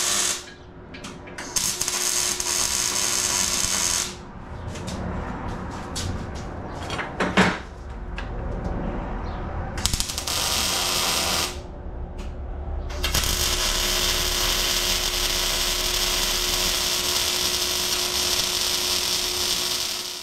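Electric arc welder crackling as steel square tubing is tack-welded: several welds with pauses between, the longest about seven seconds near the end. A single loud knock about seven seconds in.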